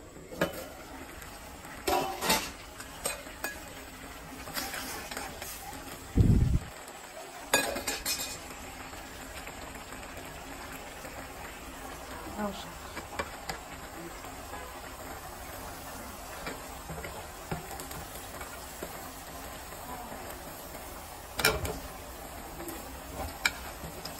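Steel lid and cooking pan clattering on a gas stove as leafy greens are handled into the hot pan, over a steady sizzle. Sharp knocks come now and then, with a heavy thump about six seconds in.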